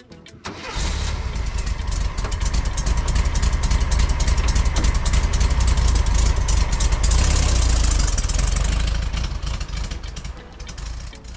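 VW Beetle's air-cooled flat-four engine running loud, with a strong low exhaust note, coming in suddenly under a second in and fading out near the end.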